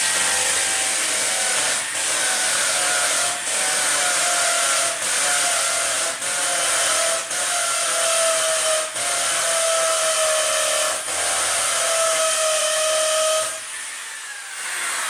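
Corded impact drill in hammer mode boring a hole into a concrete wall with a 6 mm masonry bit, running steadily with short drops every second or two, then stopping near the end. The concrete is hard going and the hole barely goes in.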